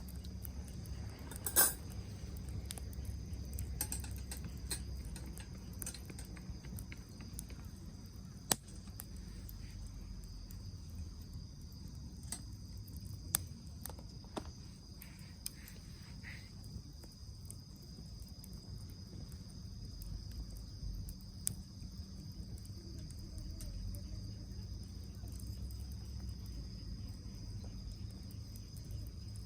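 Steady chirring of crickets, with scattered sharp crackles and pops from the pine-cone and wood fire in the fire pit, the loudest about a second and a half in.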